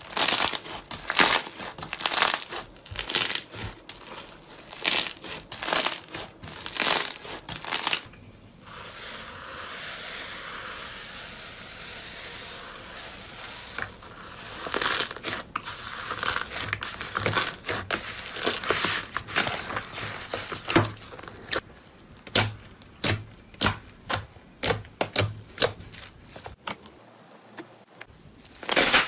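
Slime being squeezed and poked by hand, giving sharp crackling pops one or two a second. About eight seconds in this gives way to a softer continuous crinkling for several seconds, then the crisp pops and clicks come back, quicker.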